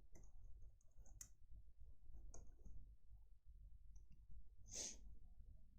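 Faint, irregular clicking of a computer keyboard being typed on, with one louder stroke near the end.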